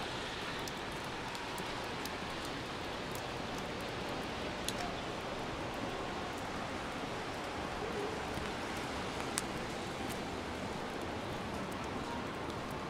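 Steady hiss of rain, with a few scattered sharp ticks of drops; the sharpest comes about nine seconds in.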